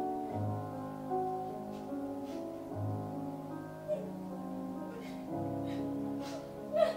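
Slow piano music with held chords that change every couple of seconds over deep bass notes. Near the end comes a brief, louder sound like a sharp breath or cry.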